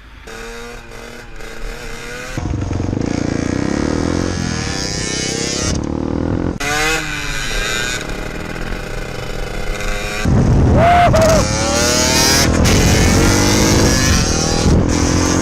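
Motorcycle engines revving and riding past, the pitch climbing and dropping through gear changes. The sound changes abruptly a few times, and it is loudest from about ten seconds in.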